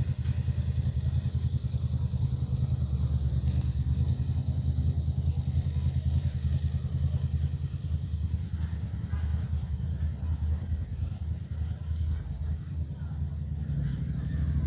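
A vehicle engine idling: a steady low, pulsing rumble that grows fainter in the second half.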